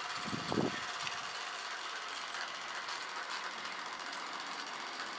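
Gas-fired model steam traction engine running, with a fast, steady mechanical clatter and hiss. A brief low sound about half a second in.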